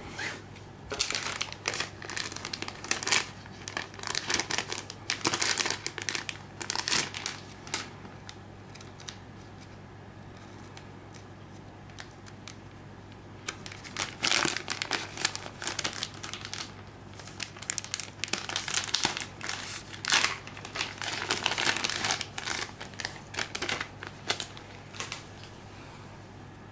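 Clear plastic packaging bag crinkling as it is handled and opened to take out an acrylic keychain, in two spells of rustling with a pause of a few seconds between them.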